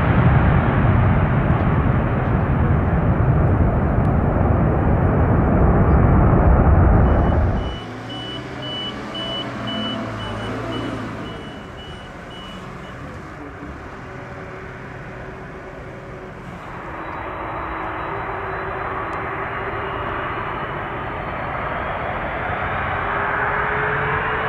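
Boeing 747 jet engines at takeoff power, a loud, deep rumble. About eight seconds in the sound drops off sharply. After that comes a quieter mix with a short run of high beeps, and near the end a rising whine of jet engines spooling up.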